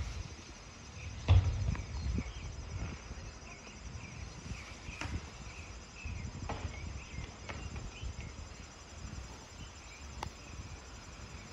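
Rear-loading garbage truck idling at a distance with a low rumble. There is a loud bang about a second in, then a few lighter knocks and clanks at the rear hopper.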